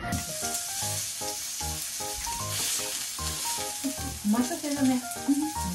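Meat sizzling on a tabletop gas grill, an even crackling hiss, over background music with a steady beat. Voices murmur faintly near the end.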